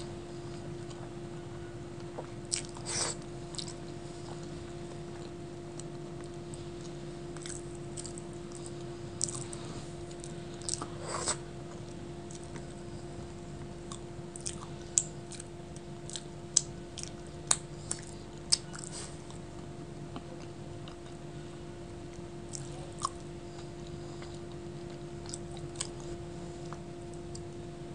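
Close-miked chewing and mouth sounds of a person eating chickpea dal with her fingers: scattered sharp wet clicks and lip smacks in small clusters, over a steady low hum.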